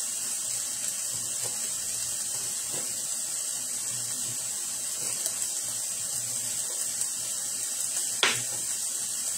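Sliced sausage and onions sizzling steadily in a frying pan, with a few light knife taps on a cutting board as broccoli florets are cut off, and one sharper knock about eight seconds in.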